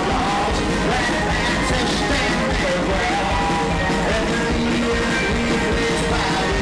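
Live country band playing loudly, with strummed acoustic guitar, upright bass and banjo under a sung lead vocal.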